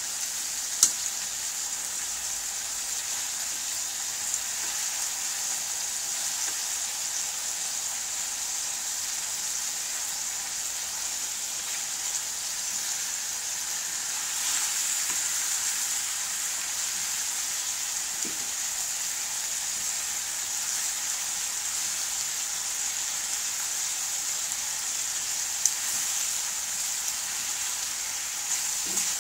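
Chicken adobo sizzling steadily in a steel wok as it fries, with a few sharp clicks of metal tongs against the pan as the pieces are turned, the loudest about a second in and another near the end.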